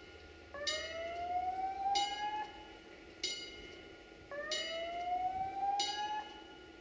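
Electronic warning signal: a ringing, bell-like strike about every 1.3 seconds, five in all, over a tone that rises slowly and starts again twice.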